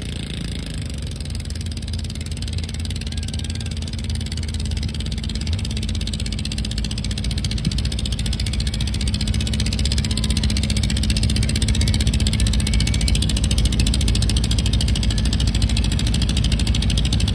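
A pulling garden tractor's engine running hard under load as it drags a weight-transfer sled down the track, holding a steady note and growing steadily louder as it comes closer.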